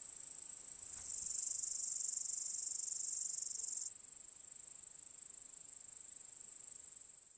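Insects chirring in a steady, high-pitched chorus, an autumn field-and-forest soundscape; the sound steps up in loudness about a second in and drops back near the four-second mark.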